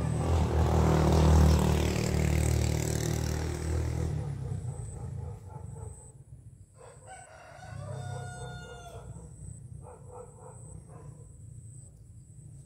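A vehicle engine rumbles loudest in the first couple of seconds and fades away. About seven seconds in, a rooster crows once, a long call of about two seconds, followed by a few short calls.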